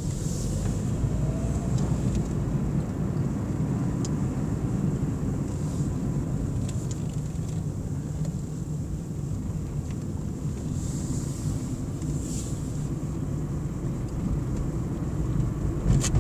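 Car driving along a road, heard from inside the cabin: a steady low rumble of engine and tyre noise. A sharp click sounds near the end.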